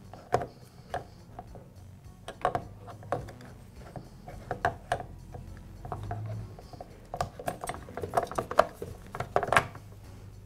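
Irregular clicks, knocks and small clinks of hard parts being handled as the saw's top handle is fitted back onto the motor housing.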